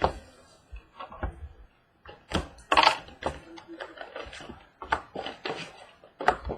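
A trading-card box and its packaging being handled and opened: a run of sharp clicks and taps of cardboard, with a louder rustle about two and a half seconds in.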